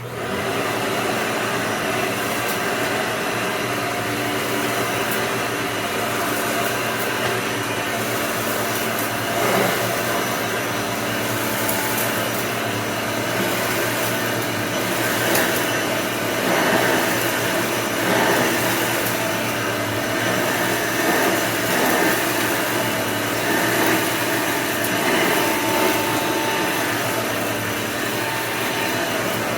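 Hoover upright vacuum cleaner starting abruptly and then running steadily with a constant motor pitch, its loudness swelling and dipping slightly now and then.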